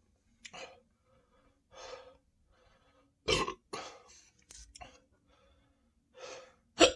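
A person's hiccups and small burps from drinking carbonated Sprite: several short, sharp sounds with breaths between them. The loudest come about three seconds in and just before the end.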